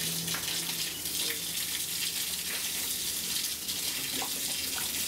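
Steady hiss with a few faint, scattered clicks.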